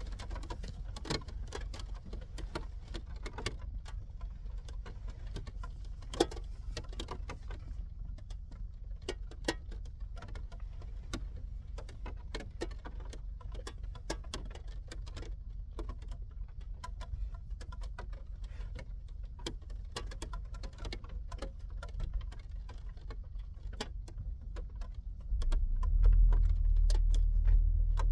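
Raindrops ticking irregularly on a hatch, some single drops sharper and louder, over a steady low rumble. About 25 seconds in, a louder low hum comes in suddenly and holds.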